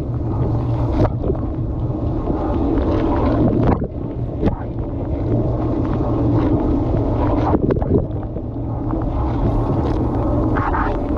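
Dishwasher running a wash cycle, heard from inside the tub: water from the spray arms rushing and splashing against the dishes and the camera over a steady pump hum, with scattered short knocks of water striking.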